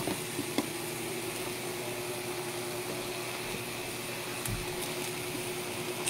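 Chicken pieces cooking in a metal wok with a steady, even sizzle, and a couple of light ladle taps on the pan near the start.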